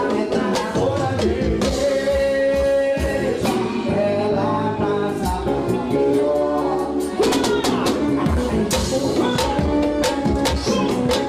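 Carnival street band music: singing over drumming and other percussion, keeping a steady beat.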